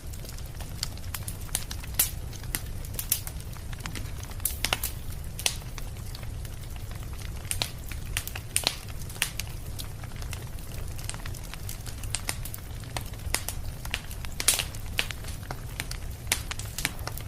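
A fire burning: a steady low rumble with irregular sharp crackles and pops throughout, a few of them much louder than the rest.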